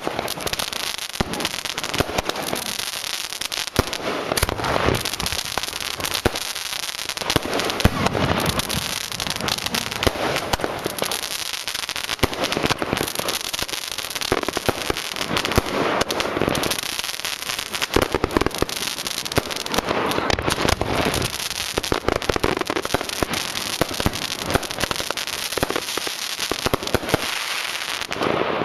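A 19-shot 500-gram consumer firework cake ('Heavy Metal') firing: shots launching one after another and bursting, with dense crackling that runs on without a break.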